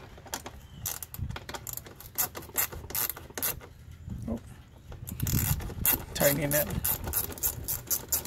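Socket ratchet clicking in quick, uneven runs of strokes as it loosens the screw of a hose clamp on a rubber air-intake hose.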